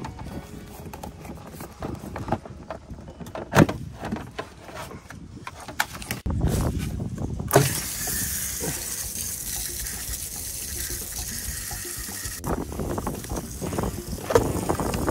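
Clicks and knocks of a plastic caravan hatch and fittings being handled. About six seconds in, a steady hiss of water running from a hose into a rolling water container starts; it stops a few seconds before the end, and more handling knocks follow.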